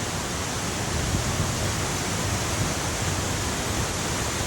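Waterfall rushing in a canyon: a steady, even roar of falling water.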